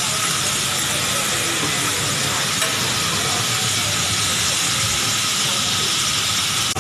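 Vegetables (shredded cabbage, then bean sprouts) sizzling on a hot teppanyaki steel griddle: a steady, even hiss that is strongest in the high range.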